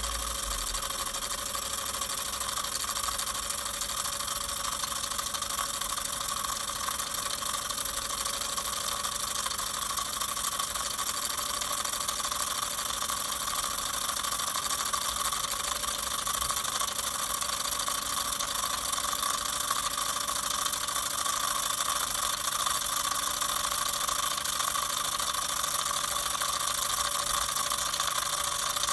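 Small model steam engine, a Mamod MEC1 fitted with a double-acting Mamod locomotive cylinder, running steadily in steam with a constant hiss and no change in speed.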